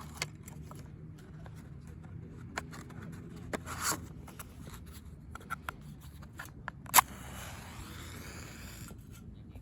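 Small clicks and scrapes of camp gear being handled, then a sharp scrape about seven seconds in followed by about two seconds of hiss.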